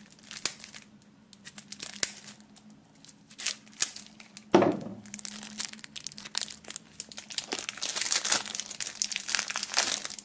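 Plastic shrink-wrap being cut and peeled off a deck of playing cards: crinkling and tearing film, denser in the second half. There are scattered clicks and a single dull knock about four and a half seconds in.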